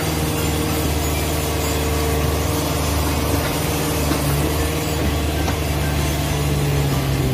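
Komatsu PC40 mini excavator's diesel engine running at a steady pitch as the machine digs soil with its arm and bucket.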